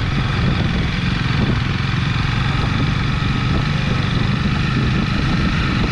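Motorbike engine running at a steady pace while riding a dirt road, with wind and road noise on the microphone.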